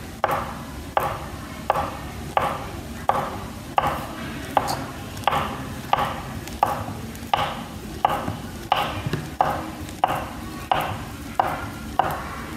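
Knife slicing a peeled banana into thin rounds on a plastic chopping board: a steady series of sharp taps, about one every 0.7 seconds, each time the blade cuts through and meets the board.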